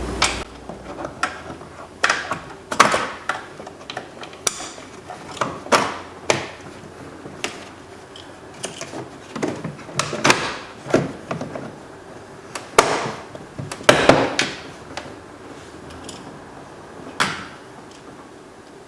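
Irregular sharp clicks and knocks from a screwdriver, screws and the plastic interior door panel being handled and fastened, spaced about a second apart.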